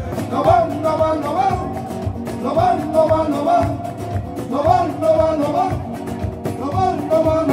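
Live rumba-flamenco band: several nylon-string Spanish guitars strummed in a quick rhythm over a cajón, with a melody line that bends up and down on top.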